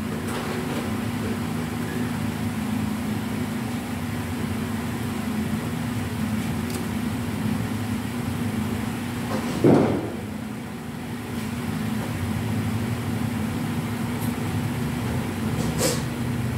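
A steady low machine hum, with a brief clunk from handling tools or parts about ten seconds in and a couple of faint clicks.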